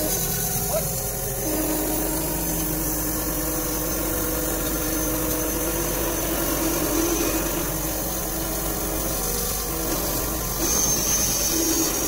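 PT-130 log band sawmill running: a steady machine drone with a held pitched hum that swells slightly a few times.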